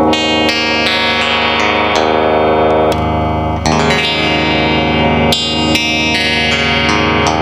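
Les Paul-copy electric guitar with its stock pickups, played directly into a Line 6 POD GX with POD Farm amp and effects modelling and no amplifier. It plays sustained, effected, somewhat distorted notes and chords, with new notes struck every half second to a second and some held notes wavering with vibrato.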